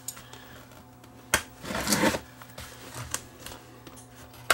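Scissors cutting through the plastic wrapping of a parcel: a sharp snip about a second and a half in, a short rustling cut just after, and a few lighter clicks.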